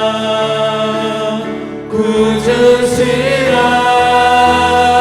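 A group of voices singing a Korean Christian worship song. They hold a long note, then begin a new phrase ('구주시라') about two seconds in.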